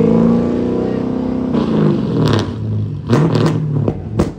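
Dodge Charger SRT's V8 revving high, the revs dropping and then climbing and falling again. Several sharp exhaust pops and cracks come as the exhaust spits flames.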